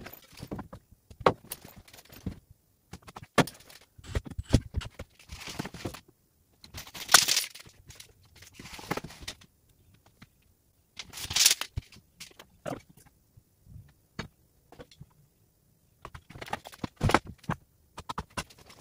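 Handling and work noise: scattered knocks, clatter and footsteps as lumber is set on a wooden frame, with tool-belt hardware jingling. Two louder scraping bursts about seven and eleven seconds in.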